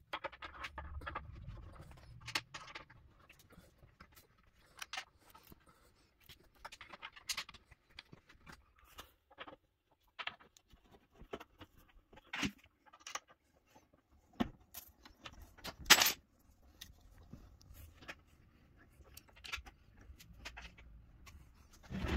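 Hand assembly of a wooden baby cot: scattered clicks and clinks of small metal bolts and fittings, with knocks and handling of the panels. A sharp knock comes about two-thirds through and another thump at the very end.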